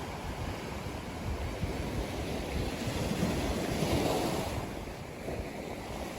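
Ocean surf: a wave swells, breaks and washes in, loudest about four seconds in, then recedes. A low, gusty rumble of wind on the microphone runs under it.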